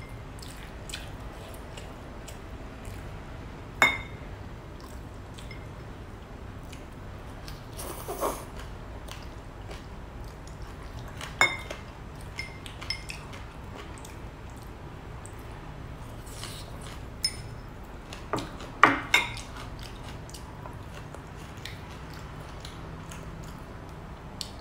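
Chopsticks clinking now and then against a ceramic rice bowl: a few sharp, briefly ringing taps, the loudest about four and eleven seconds in and a quick pair near the end, with soft eating sounds in between.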